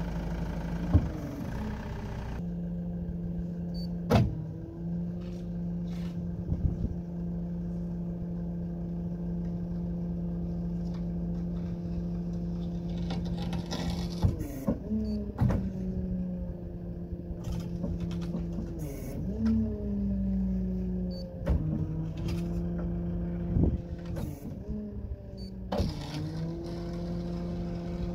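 Tow truck's hydraulic wheel-lift being worked: a steady pump whine that bends and shifts in pitch several times as the controls are moved. Sharp metallic clanks from the lifting arm and frame come at intervals.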